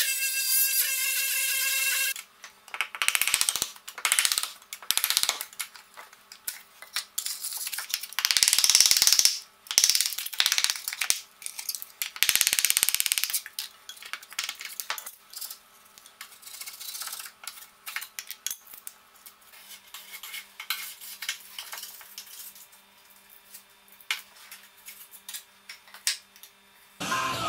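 Oscillating multi-tool buzzing steadily as it cuts through a skirting board, stopping about two seconds in. Then a long run of irregular knocks, clatters and scrapes as the cut skirting board is pulled away and handled.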